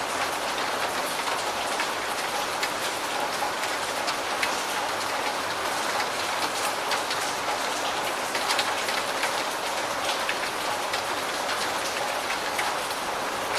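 Steady rain falling, a dense hiss with many individual drops ticking on a surface.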